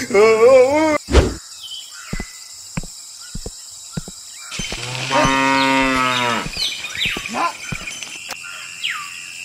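A cow mooing once, a long low call of about two seconds in the middle, added as a sound effect. Before it, a heavy thump about a second in and a few light clicks.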